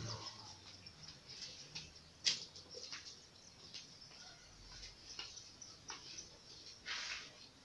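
Faint scattered taps and scuffs of a child crawling and then walking across a hard floor, with one sharper click about two seconds in and a longer scuff near the end.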